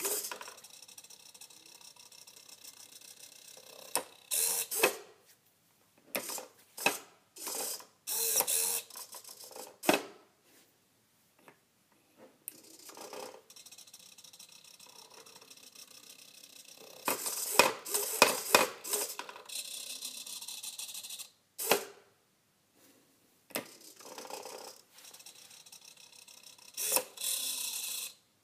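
Homemade wooden useless machine working: its small electric gear motor whirs in repeated stop-start spurts as the arm pushes the lid open and knocks the toggle switch back off. Sharp clicks and wooden knocks come from the switch and the lid.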